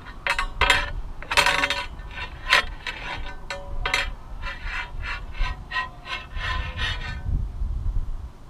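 Rapid rubbing and scraping from the payload capsule as it hangs and swings, a run of squeaky scrapes that stops about seven seconds in, over a low wind rumble on the microphone.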